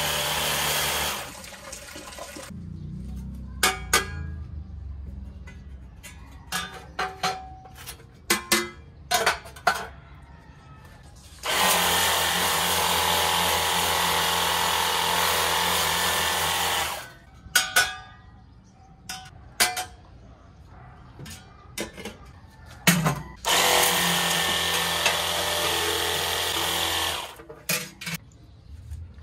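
Handheld pressure washer spraying in three bursts, the longest about five seconds, its pump whirring under the hiss of the water jet on metal grill trays. Between bursts, sharp knocks and clatter of the trays and wire rack being handled.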